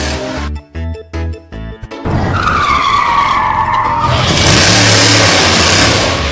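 Background music with a beat, then added car sound effects: a screeching tyre skid that dips and rises in pitch, followed by a loud rushing crash-and-skid noise.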